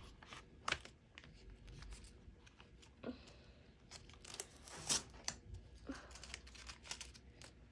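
Tape being peeled off a painting: a few short ripping sounds, the loudest about five seconds in, with faint crinkling between.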